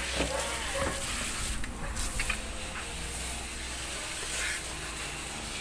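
Garden hose spray nozzle spraying water in a steady hiss, rinsing a small dog and splashing onto a plastic floor grate.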